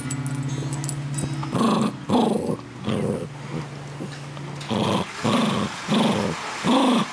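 West Highland White Terrier growling in short growls while chewing a toy bone. The growls come about once a second, more evenly in the second half.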